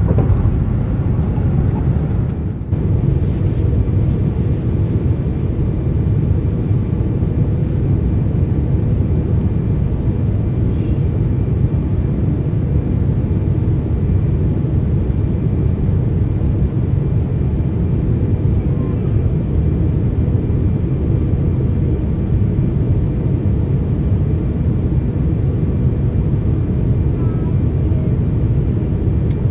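Steady low roar of a Boeing 787 in flight, engine and airflow noise heard inside the passenger cabin. About two and a half seconds in there is a brief dip in the noise where the recording is cut.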